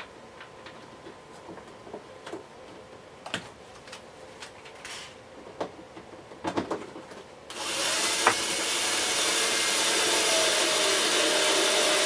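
Small handling clicks, then about five seconds in a powered screwdriver runs steadily for around five seconds, driving a casing screw back into the vacuum cleaner's plastic body, its motor note sagging slightly as the screw tightens.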